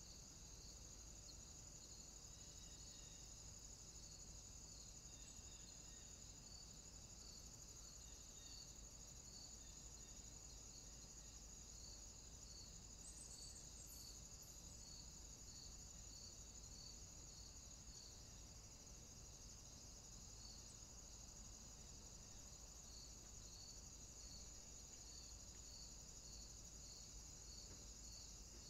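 Faint, steady insect chirping: a high continuous trill with a lower chirp pulsing at a regular rhythm.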